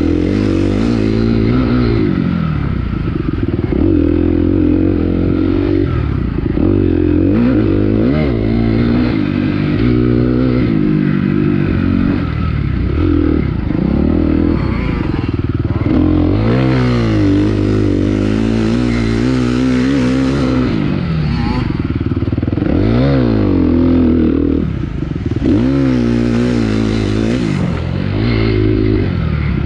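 Dirt bike engine racing, its pitch climbing and dropping again and again through the revs, with a near-constant rattle of the bike over rough ground.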